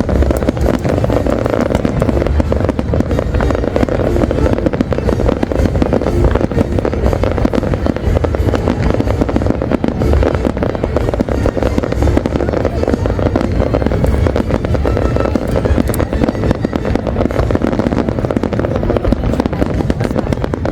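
Fireworks display in a dense, unbroken barrage: bursts and crackles follow one another continuously, with a deep rumble beneath.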